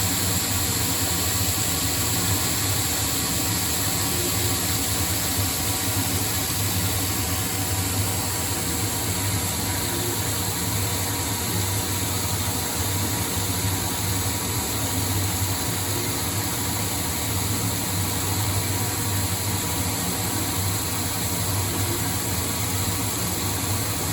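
ProtoTrak CNC lathe running through a roughing cut on a 4140 heat-treated steel shaft: a steady machine hum with a hiss of cutting noise that does not change.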